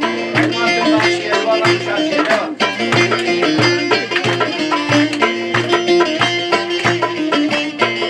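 Traditional folk-style music with a steady drum beat of about two strokes a second over a held note.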